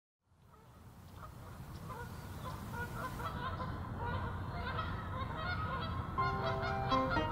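Canada geese honking, many short calls overlapping, fading in from silence. Music with long held notes comes in about six seconds in.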